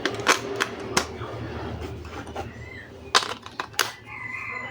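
Hard plastic toy pieces clicking and clattering as they are handled: a quick run of sharp clicks in the first second, then three more around three seconds in.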